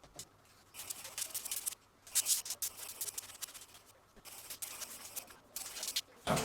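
Irregular bursts of dry scratching and rubbing, several short strokes with brief pauses between them, made by hand work on the opened laptop.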